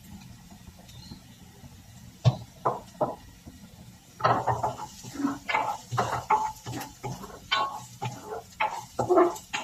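A black plastic spoon knocks three times against a ceramic-coated frying pan, then scrapes and stirs chopped onion, garlic and ginger in oil in quick, irregular strokes from about four seconds in.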